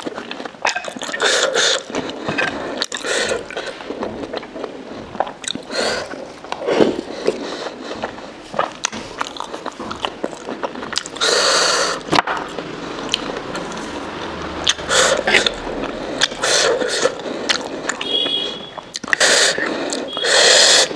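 Close-miked mukbang eating: wet chewing of momo dumplings in soup, with slurping and a ceramic spoon scraping and clinking in the bowl. Two longer slurps come about eleven seconds in and near the end.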